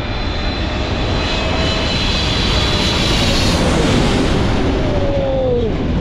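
Jet airliner's engines at takeoff thrust close by: a loud rushing engine noise with a high turbine whine, building to a peak about four seconds in and falling in pitch near the end as the aircraft passes. The jet blast gusts across the microphone.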